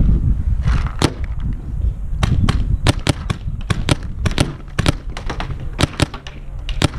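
Paintball markers firing: some twenty sharp pops at an irregular pace, often two or three in quick succession, over a low rumble.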